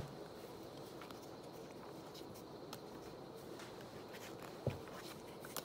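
Quiet room tone with a few faint clicks of Pokémon trading cards being slid from the front to the back of a hand-held stack, and one soft thump near the end.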